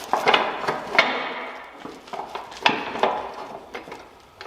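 Hammer blows on the heavy steel parts of an excavator's pin joint, each strike ringing out and fading. There are about five strikes, irregularly spaced, two close together near the start and two more a little under three seconds in.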